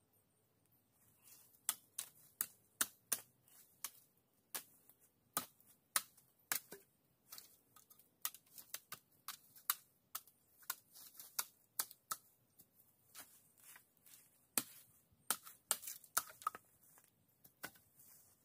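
Irregular sharp cracks and snaps of wood, one to three a second, some much louder than others.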